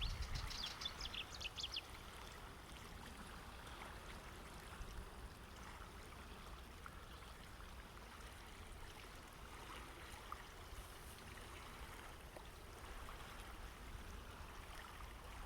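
Water lapping gently against a shore: a faint, steady wash. A quick run of high ticks sounds over the first two seconds.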